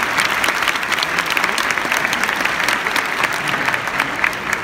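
Large stadium crowd applauding steadily, with individual claps close by standing out from the mass of clapping.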